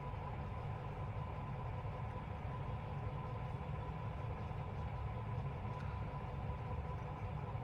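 A steady low mechanical hum with a faint steady tone above it.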